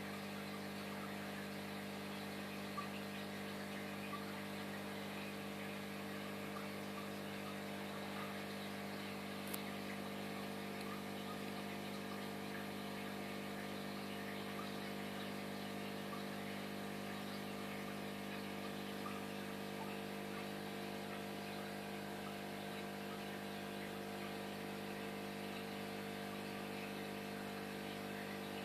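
Steady hum of running aquarium equipment, with the fine fizz of air bubbles rising from airstones and a bubble curtain. A single faint click about ten seconds in.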